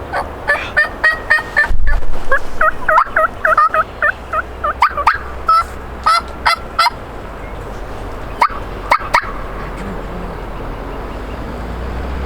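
Wild turkey calling: a long run of quick, repeated pitched notes, then a few short sharp putts a little past the middle. The putts are the alarm call of a wary bird.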